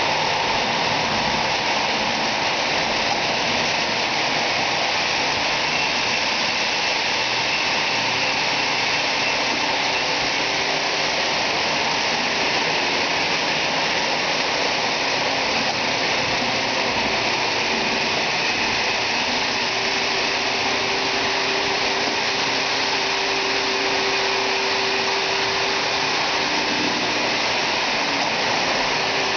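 Lionel O-gauge die-cast 4-4-2 steam locomotive pulling a string of passenger cars around the track, making a steady, even rolling rumble of wheels on rail.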